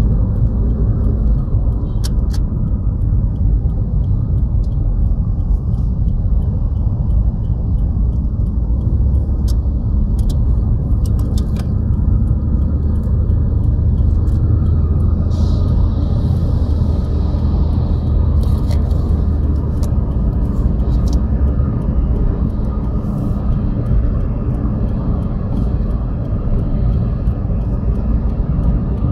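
Road and engine noise inside a moving car's cabin: a steady low rumble, with a few faint clicks and a brief hiss about halfway through.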